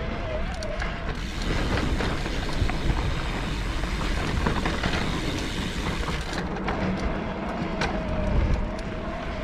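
Electric mountain bike motor whining steadily under pedal assist on a climb. The whine drops out about a second in and comes back near the end, while a rough noise of tyres and the bike on the trail, with many small clicks and knocks, fills the middle.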